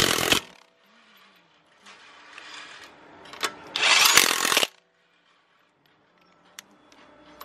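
Cordless impact wrench on the wheel bolts of a Lamborghini Urus, during a winter-tyre change. A burst cuts off at the very start, and a second burst of about a second comes near the middle, with light clicks of tool handling in between.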